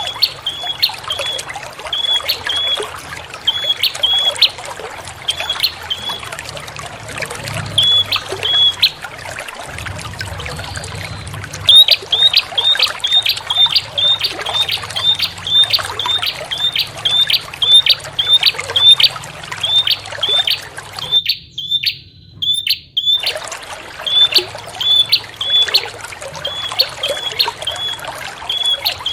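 Prinia (prenjak) calling: a long run of short, high chirps repeated rapidly, used as a lure call, over a steady trickle of running water. The chirps come faster from about twelve seconds in, and everything drops out for about two seconds past the middle.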